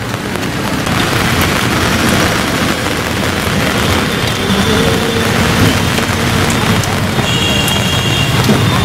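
Steady rain falling in a busy street, a dense continuous hiss. A few short high-pitched beeps sound near the middle and again toward the end.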